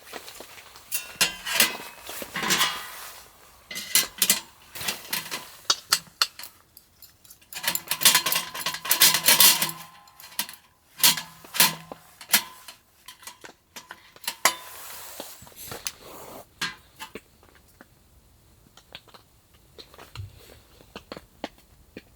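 Irregular clinks and clatters of hard objects being handled, like cookware and utensils, in quick runs that are busiest near the middle and thin out toward the end. A single low thump comes near the end.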